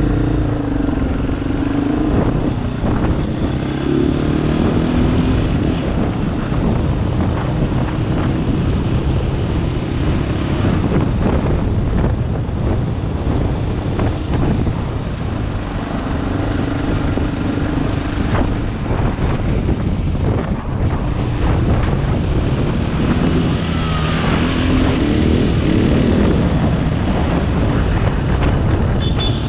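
KTM 500 EXC's single-cylinder four-stroke engine running under way, its pitch rising and falling with the throttle, with wind rushing over the microphone.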